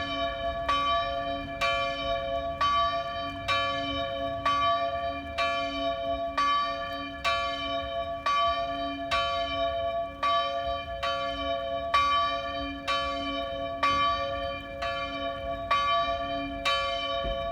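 A single church bell tolling steadily, struck about three times every two seconds, each stroke ringing on into the next.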